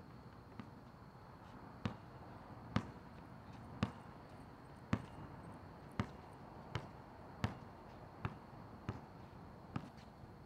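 A basketball bouncing on an outdoor asphalt court, about eleven sharp dribbles roughly a second apart at an uneven pace.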